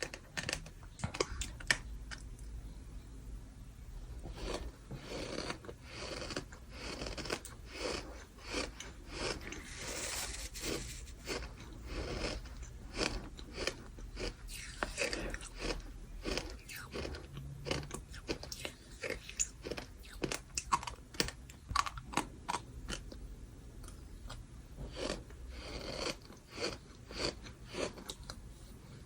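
Close-miked gritty crunching of bird sand being chewed: a dense, irregular run of sharp crunches and crackles.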